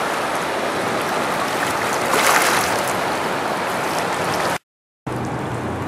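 Rushing water of a river in flood, a steady hiss of fast, muddy current running at three or four times its normal flow, with a brief swell about two seconds in. The sound cuts out for about half a second near the end, then the same rushing resumes.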